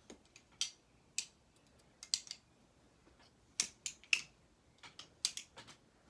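Balisong (butterfly knife) being flipped: sharp metallic clicks as the handles swing around and strike each other, about a dozen at irregular intervals, some in quick runs of two or three.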